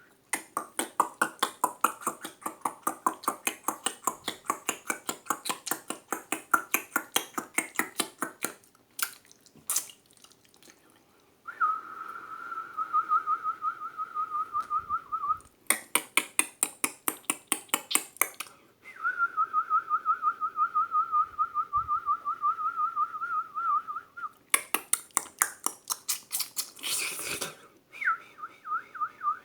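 A person imitating birdsong with the mouth: long runs of rapid tongue clicks alternating with a warbling whistle that flutters quickly around one pitch, repeated three times.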